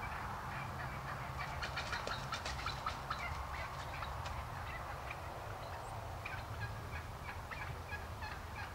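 Wild turkey gobbler gobbling: a rapid rattling gobble about a second and a half in, and more gobbling notes near the end, over a steady low background hum.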